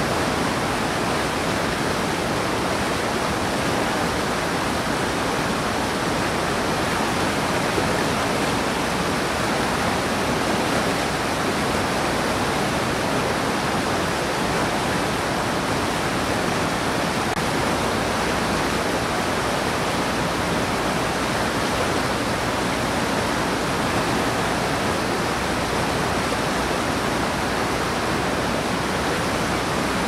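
Whitewater rapids of the Middle Fork Stanislaus River rushing, a steady unbroken noise.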